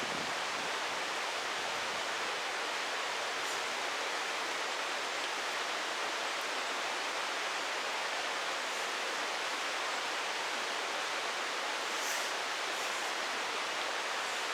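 Steady rushing of a mountain stream, an even wash of flowing water.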